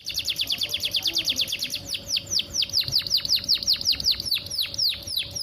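Domestic canary singing a trill of repeated, sharply down-slurred whistled notes, about ten a second at first, then slowing to about five a second, wider sweeps after about two seconds.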